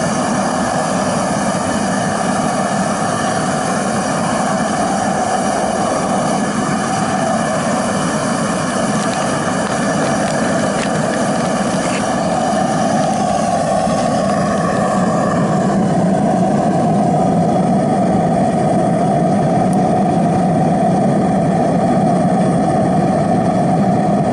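Homemade waste-oil burner, fed waste oil and propane with blown air, firing into a barrel furnace: a steady rush of flame and forced air, a little louder from about two-thirds of the way through.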